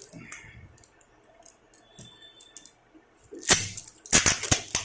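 Plastic parts of an Oppo A5s smartphone being handled and pried apart during disassembly: a few light clicks, then loud crackling and scraping near the end.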